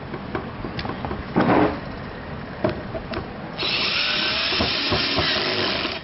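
Cordless drill running steadily for the last two seconds or so, its bit on an aluminium antenna element tube fixed to a wooden boom. Before that, a few light clicks and a short loud rustle as the metal rods are handled.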